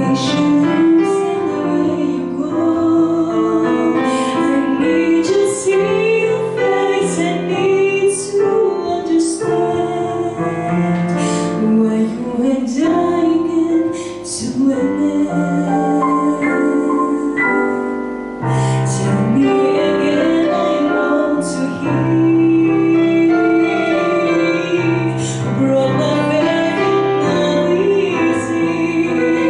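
A woman singing a jazz standard in English into a hand microphone, accompanied by chords on a digital piano.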